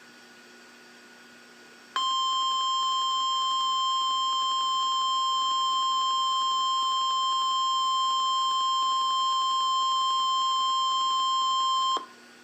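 NOAA Weather Radio 1050 Hz warning alarm tone: one steady, high-pitched tone that starts about two seconds in, holds for ten seconds and cuts off sharply. It is the attention signal that comes before a severe-weather alert message, here a tornado watch.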